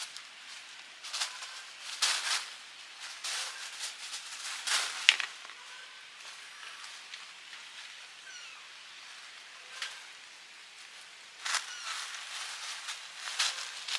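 Cats wrestling and scuffling on a concrete floor: irregular bursts of rustling and scratching, clustered about two seconds in, around four to five seconds in, and again near the end, with one sharp click just after five seconds.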